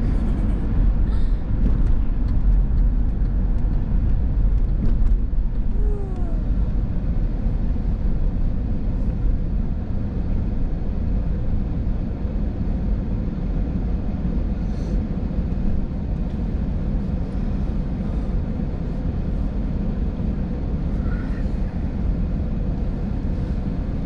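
Steady low rumble of a car's engine and road noise heard from inside the cabin while driving, easing off about ten seconds in as the car slows to a stop and idles at a red light.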